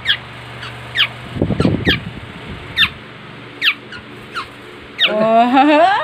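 A young black-naped oriole giving short, sharp, downward-sweeping call notes, repeated irregularly about once a second. Near the end a rising, wavering voice-like sound comes in.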